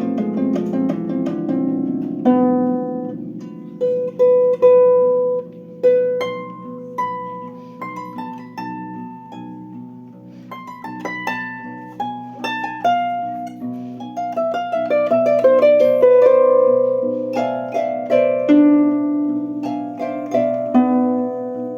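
Improvised solo music on a plucked string instrument: single notes and quick runs, each struck sharply and ringing away over lower held notes.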